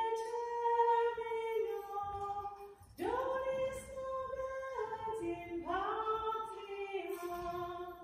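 A woman singing a hymn unaccompanied, slow held notes, with new phrases starting about three and six seconds in.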